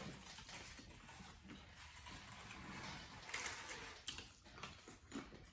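Faint eating sounds: chewing with small crunches and mouth clicks, with one sharper click about four seconds in.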